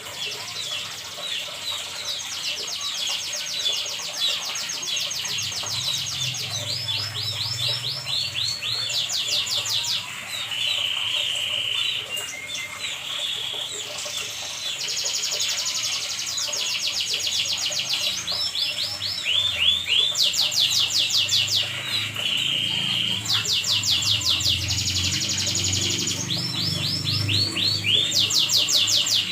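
Domestic canary singing continuously in long, rapid trills and rolling phrases, each held for a second or two before switching to the next, with the same tours coming back again and again.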